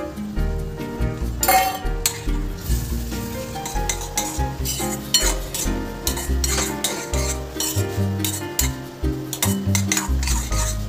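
A steel spoon stirring and scraping thickening semolina around a stainless steel pot, with a light sizzle from the cooking. The semolina is being stirred until the water is absorbed. Background music with a bass line plays underneath.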